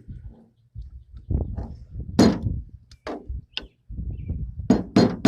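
Sharp metallic tapping as a screwdriver knocks stuck parts out of a jet ski electric starter, each tap with a short ring. A few separate taps, then near the end a quick run of taps about three a second.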